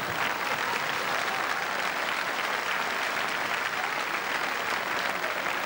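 Theatre audience applauding, a steady clatter of many hands clapping.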